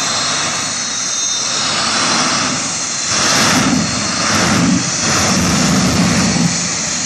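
Green Mamba jet car's turbine engine running with a steady high whine. About three seconds in it surges three times, each surge adding a heavier rumble.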